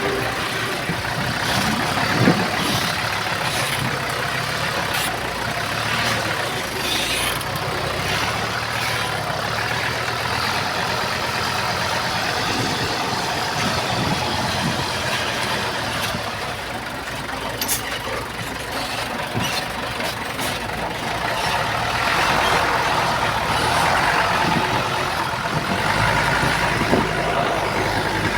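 Diesel engines of heavy earthmoving machinery running steadily, with scattered sharp knocks and clanks, a little louder near the end.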